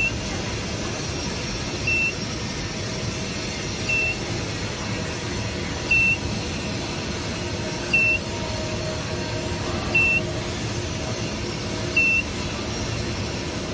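An electronic beeper gives a short, high beep about every two seconds over a steady mechanical hum.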